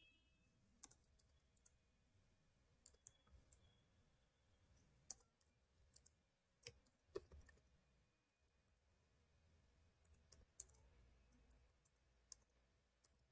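Faint, irregular clicks of computer keyboard keys being typed, a dozen or so scattered strokes with gaps between them.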